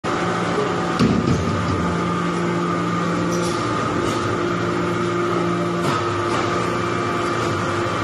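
Hydraulic metal-chip briquetting press running: a steady machine hum with held tones that cut out briefly and come back every couple of seconds, and a single clunk about a second in.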